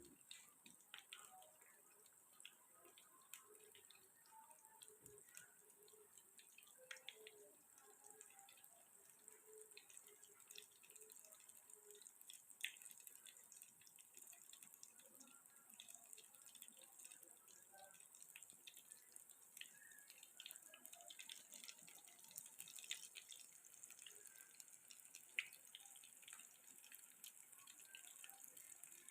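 Near silence, with faint scattered ticks and crackles over a soft high hiss.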